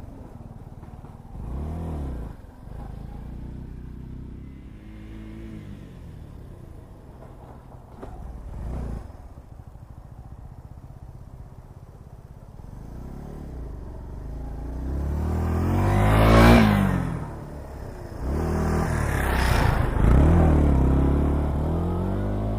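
Yamaha SR125's single-cylinder four-stroke engine running at low revs, with brief throttle blips at about 2 and 9 seconds in. Later it revs up twice, climbing to a loud peak around 16 seconds and again around 19 seconds, easing off after each.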